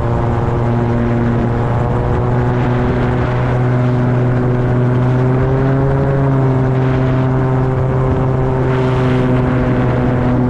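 Homemade gyrocopter's engine and propeller droning steadily in cruising flight, heard loud and close from the open seat; the pitch rises slightly about halfway through.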